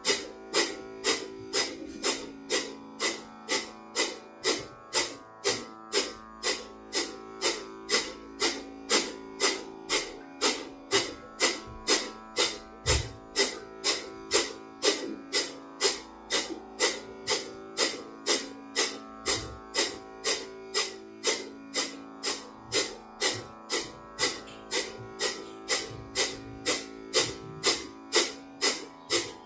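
Kapalabhati breathing: short, forceful exhalations pushed out through the nose by the abdomen, about two sharp hissing puffs a second in an even rhythm. Soft instrumental music with sustained tones plays underneath.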